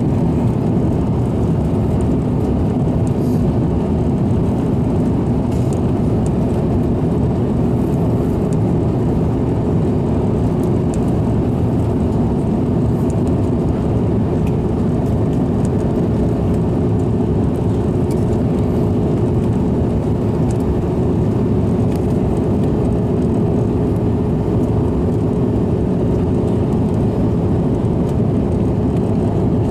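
Jet airliner cabin noise on the descent to landing: a steady, even roar of engines and airflow heard from a seat by the wing, with a steady hum running under it.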